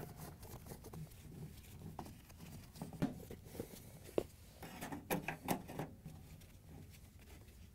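Faint clicks and taps of a hand nut driver driving screws into a refrigerator's sheet-metal rear access panel, scattered through the middle of the stretch.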